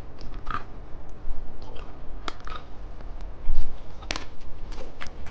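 Close-up clicks and crinkles of small plastic candy packaging being handled, with a louder thump about three and a half seconds in.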